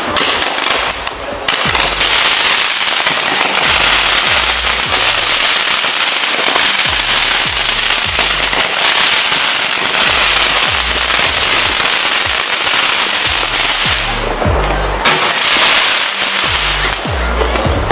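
Dense crackling fireworks, a rapid mass of small pops and sparkles with bursts going off, easing briefly about two-thirds of the way through. Music with a deep, booming bass beat plays underneath.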